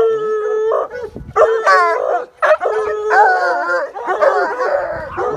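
Coonhound howling and baying: one long held howl of about a second, then a run of shorter, bending bawls and yelps.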